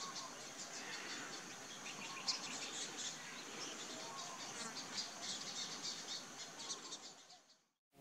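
Outdoor bush chorus: a steady high insect hum with many short, high bird chirps over it, fading out near the end.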